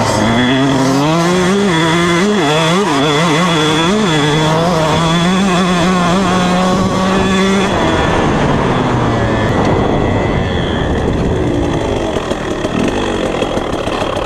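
KTM 150SX two-stroke dirt bike engine, heard close from the rider's seat, running under throttle with its pitch rising and falling as the throttle is worked. About eight seconds in the throttle rolls off and the steady engine note gives way to a rougher, quieter sound as the bike slows.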